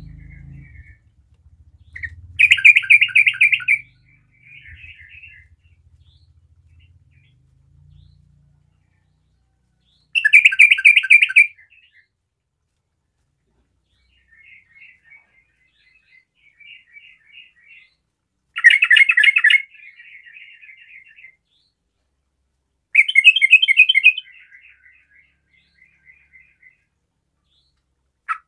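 Yellow-vented bulbul (trucukan) singing: four loud bubbling song phrases a few seconds apart, each followed by softer chattering notes.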